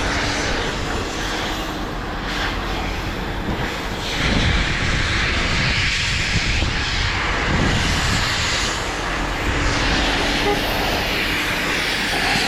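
Steady engine-like rumble with a rushing hiss that swells and fades every few seconds.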